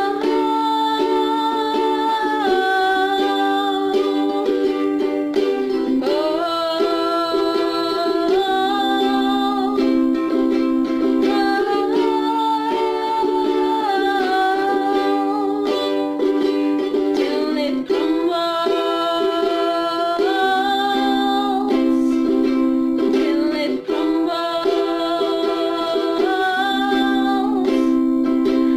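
Music: a slow instrumental passage led by a ukulele, with held chords that change every two to three seconds.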